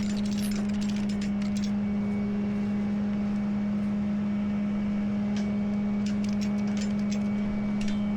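Steady hum of the rollback tow truck running, with scattered short clicks and rattles.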